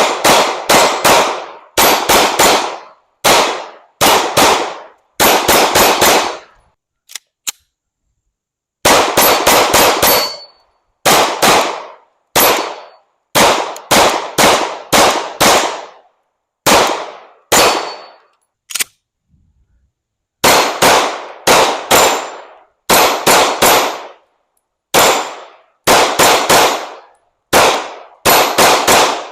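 9mm pistol being fired in quick strings of two to five shots, roughly a third of a second apart, with short pauses between strings. There are two longer breaks of about two seconds, one a little after a quarter of the way in and one past the middle.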